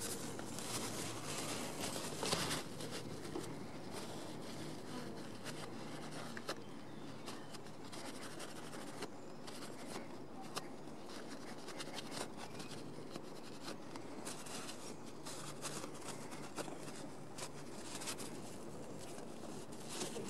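Paper towel rubbing and wiping an aluminium scooter brake lever, a faint rustling scratch with scattered small clicks from handling the part.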